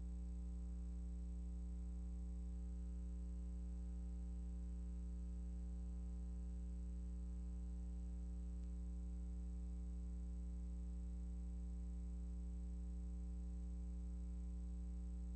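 Steady low electrical hum with a ladder of overtones and a thin, high, unchanging whine. It is the background noise of a silent film's transfer, with no other sound.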